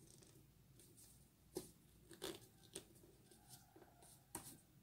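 Faint, short rustles of a sheet of paper being folded and creased by hand, a handful of them spread out with near quiet between.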